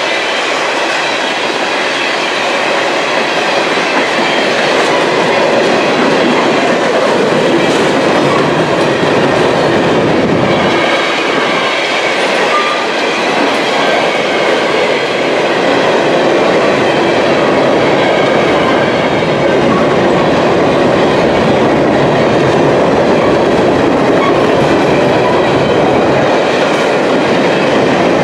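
Freight train of empty potash covered hopper cars rolling past, with a steady rumble and clatter of wheels on the rails.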